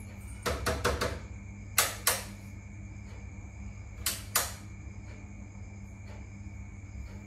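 Sharp clicks of wall light switches being pressed: a quick run of clicks about half a second in, then a pair about two seconds in and another pair about four seconds in, over a steady low hum.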